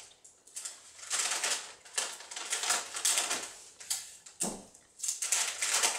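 Brown paper bag crinkling and rustling in irregular strokes as its top is folded over and taped shut, with adhesive tape pulled and torn from a desk dispenser.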